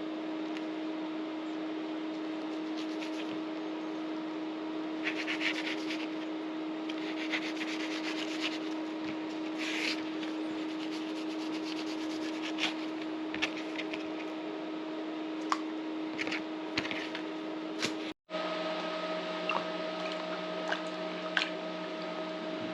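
A fillet knife scraping and slicing through fish in short, rasping strokes, over a steady mechanical hum. A brief break near the end, after which the hum changes in tone.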